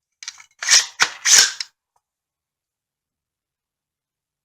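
Sharp metallic clicks and clacks from a PSA AR9 9mm pistol being dry-fired and handled to test its trigger, a quick cluster of several clicks within the first second and a half.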